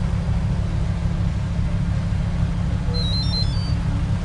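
Boat engine running steadily underway, a low drone with a fast pulsing beat. About three seconds in, a short, high, stepped chirping phrase sounds over it.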